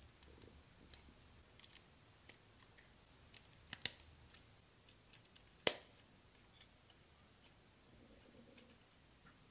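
Jie Star plastic building bricks clicking as they are pressed together and handled: a scatter of light clicks, a close double click about four seconds in, and one louder, sharper click a little before six seconds.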